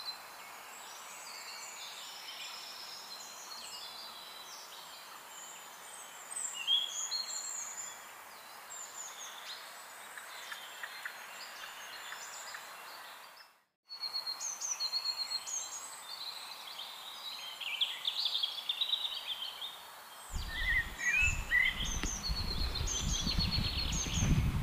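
Several wild birds chirping and singing over a steady outdoor hiss, with the sound cutting out briefly midway. Near the end a low rumbling noise comes in under the birdsong.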